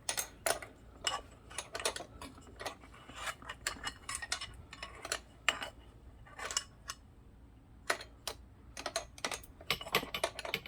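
Irregular metallic clicks, clinks and taps of hand tools: a wrench and a length of steel tube being handled and fitted against a bicycle pedal.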